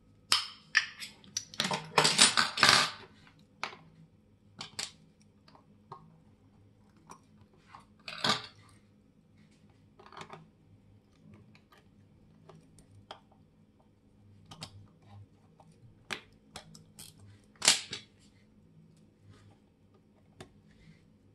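Small metal watch parts and watchmaker's hand tools clicking, tapping and scraping on the bench: a busy cluster of sharp clicks and scrapes at the start, then scattered single clicks and taps, with two more short scrapes later on.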